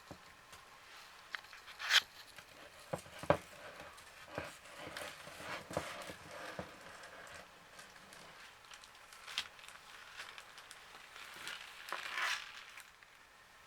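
Scattered light taps, clicks and rustling from handling and movement, with two sharper knocks about two and three seconds in and a longer rustle near the end.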